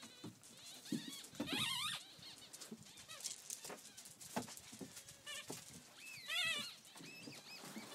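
German Shepherd puppies yelping and whining in play: short, high, wavering cries, the loudest about one and a half seconds in and again about six seconds in, with scattered small knocks and scuffles between them.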